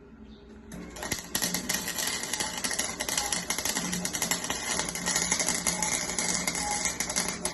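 Electric welding arc crackling with rapid irregular clicks as a weld bead is laid, starting about a second in.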